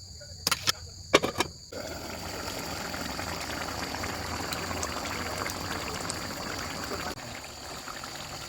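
A few sharp clinks in the first second and a half, then a steady bubbling hiss of chicken curry cooking in the pot, easing a little near the end.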